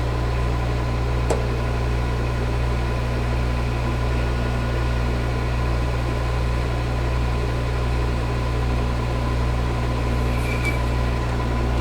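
Metal lathe running with a steady motor hum, with a single click about a second in.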